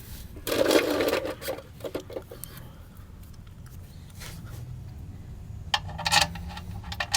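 Metal hand tools and the oil drain plug being handled, with a loud scraping rustle about half a second in and a few light clinks. Near the end a socket wrench starts ratcheting with quick clicks as the drain plug is run back in.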